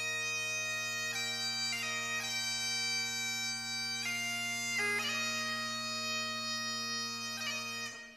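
Bagpipe music: steady drones under a slow chanter melody broken by quick grace notes. It stops just before the end, leaving a short fading ring.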